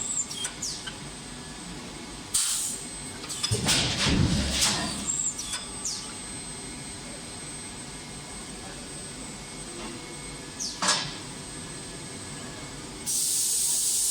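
Axle-shaft induction forging line at work: a few scattered metal clanks and knocks over a steady machine hum with a faint high whine. Near the end a loud, steady hiss starts suddenly.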